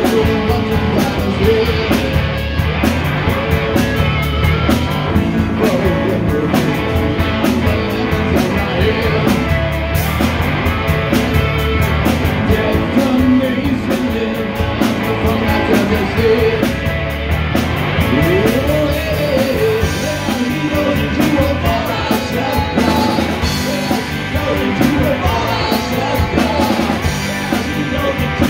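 Live rock band playing through a PA: electric guitars, electric bass and a drum kit, steady and loud, with some singing.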